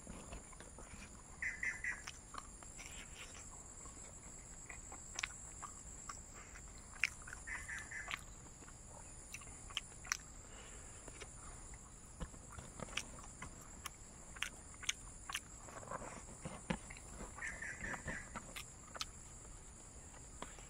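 Close-up chewing of dried fried pork: scattered wet clicks and crunches from the mouth, faint and irregular.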